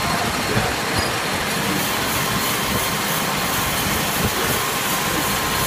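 Manual lathe running while machining a titanium screw blank: a steady, even machine noise with a faint high steady tone.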